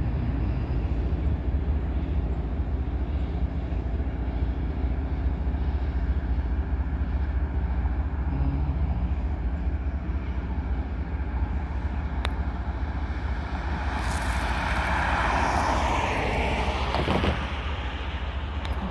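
Passenger train cars rolling over a bridge and away: a steady low rumble with a rushing noise. About three quarters of the way through a louder rushing swell builds, then cuts off suddenly.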